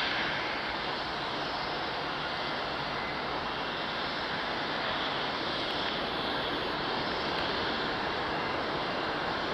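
Jet engines of an Airbus A330-200 during touchdown and landing rollout: a steady rushing noise with a hiss on top, holding level throughout.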